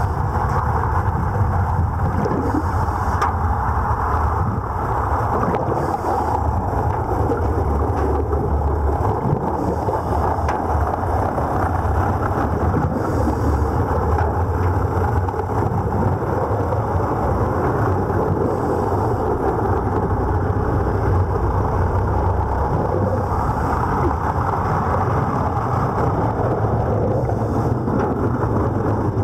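Steady, muffled underwater rumble with a few faint clicks.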